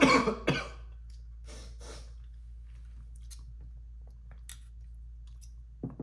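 A man with a cold coughing: a loud fit of coughs in the first second, then a couple of fainter ones, followed by a few light clicks.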